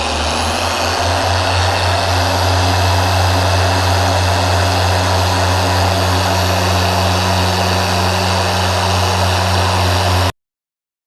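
Griot's Garage G8 random orbital polisher running at a high speed setting with a microfiber pad and compound on the paint: a steady motor hum with a high whine that climbs in pitch at the start as it speeds up. The sound cuts off abruptly near the end.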